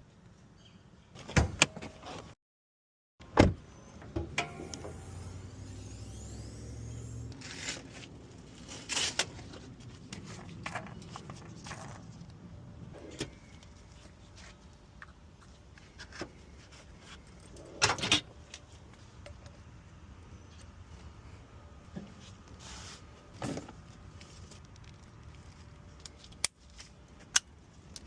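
Scattered knocks, clicks and clatter of hand work on a car, with a low rumble for a few seconds and a short drop to dead silence about two and a half seconds in.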